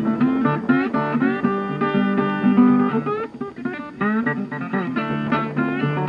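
Background music: a guitar picking a quick melody, some notes bent in pitch.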